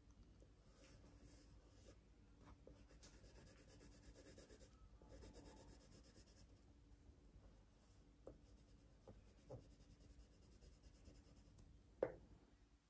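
Faint scratching of a drawing tool on paper as shadows are shaded in. There are a few light ticks after the middle and a sharper click near the end.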